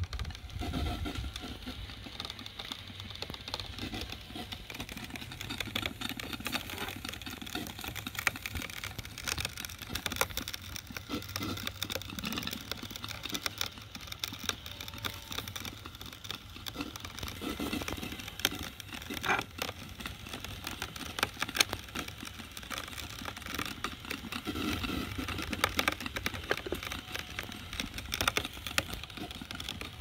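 Model steam engine driving a cast-iron coffee grinder through a belt and roller chain: steady mechanical running with many small irregular clicks as the grinder works through coffee beans.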